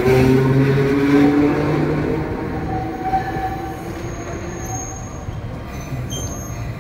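An electric tram's motors whine, with the pitch sliding, as it pulls away and fades over the first few seconds. A quieter rail rumble follows, with thin, high wheel squeals late on as the Botchan Ressha rolls slowly in.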